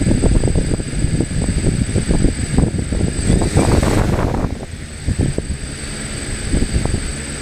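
Strong gusty wind buffeting the microphone, rising and falling in a low rumble. Under it, a steady high-pitched whine from the multirotor's motors.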